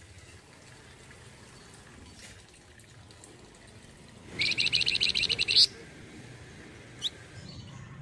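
Caged flamboyan songbird singing one loud, rapid trill of about a dozen quick high notes lasting just over a second, halfway through, then a single short rising note near the end.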